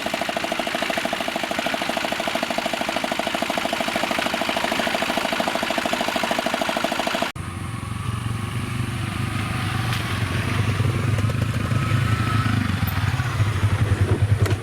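An engine running steadily. About seven seconds in, the sound cuts abruptly to a different, deeper and louder engine, which runs on.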